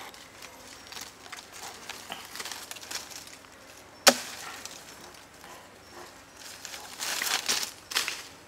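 A knife cutting and trimming a thin green stick. There is light scraping, one sharp crack about four seconds in, and a run of brisk rasping strokes near the end.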